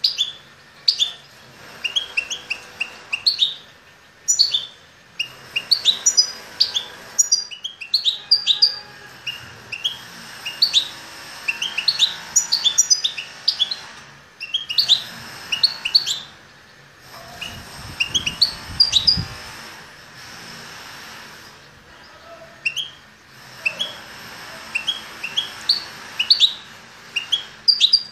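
A caged songbird sings in runs of short, sharp chirps, phrase after phrase with brief pauses between them. A low rumble is heard a little past the middle.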